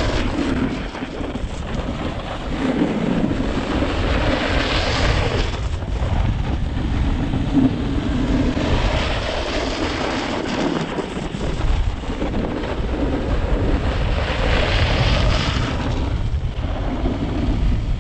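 Wind buffeting a handheld action camera's microphone over the scrape and hiss of a snowboard's edge sliding on groomed snow during carved turns. The hiss swells three times as the board rolls onto an edge.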